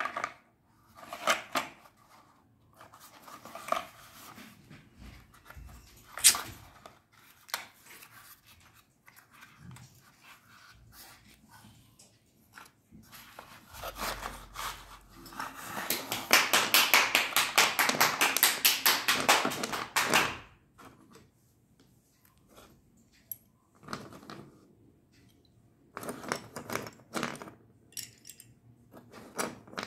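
A cardboard box of slate pencils being handled and opened, with scattered taps and rustles. Midway comes a dense run of rapid clicking and rattling lasting about six seconds as the pencils shift in the tilted box. Near the end there are sparse clicks of the slate sticks knocking together in the hand.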